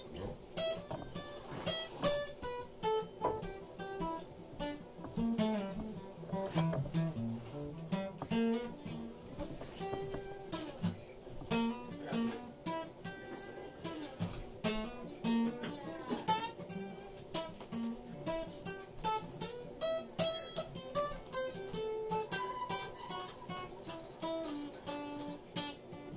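Acoustic guitar music: a melody of plucked notes with some strumming, played without a break.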